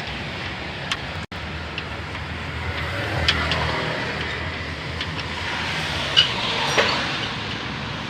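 Steady rumble of vehicle or traffic noise with a few light clicks and knocks scattered through it.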